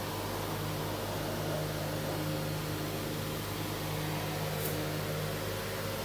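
Steady machine hum with an even hiss over it, unchanging throughout. A brief faint high tick a little after the middle.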